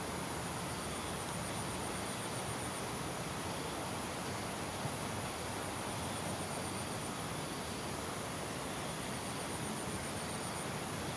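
Evening insect chorus: a steady high-pitched buzz, with a rapid pulsing trill that comes and goes in three spells. Underneath is a steady background hiss.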